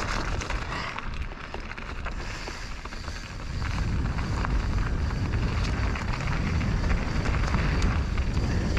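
Mountain bike riding downhill on a dirt trail: wind rumbling on the action-camera microphone, tyres rolling over dirt and rocks, and scattered rattles and clicks from the bike. The wind rumble gets louder about three and a half seconds in as the bike picks up speed.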